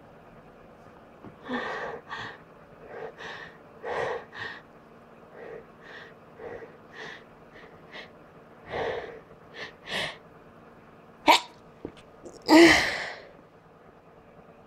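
A person's sneeze building up: a run of short, breathy gasps, then a sharp catch about eleven seconds in and one loud sneeze near the end.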